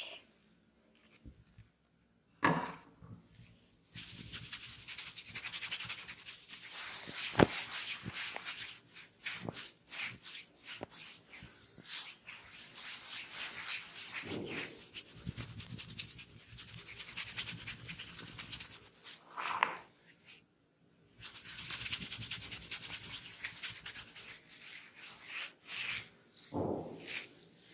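Close-miked scratching and rubbing on a dry, flaky scalp and hair during dandruff scratching. It comes as long stretches of dense, hissy strokes with short pauses between them, plus one sharp click about a quarter of the way through.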